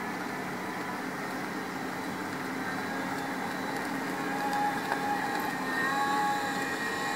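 Electric drive whine from a home-built self-balancing one-wheeled motorbike, starting about four seconds in and growing louder as it comes closer, shifting up in pitch in small steps. Underneath is a steady background hiss.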